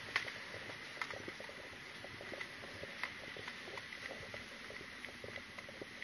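Footsteps on a concrete sidewalk with scattered small clicks and knocks, the sharpest about a second apart near the start and again about three seconds in, over a steady hiss and a thin, faint high tone.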